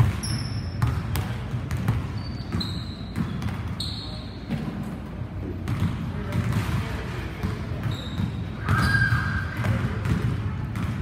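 Basketballs bouncing on a hardwood gym floor, in repeated irregular thuds, with short sneaker squeaks now and then.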